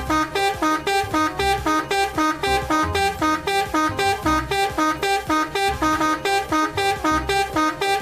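Background music: quick plucked-string notes, about four a second, with a steady beat.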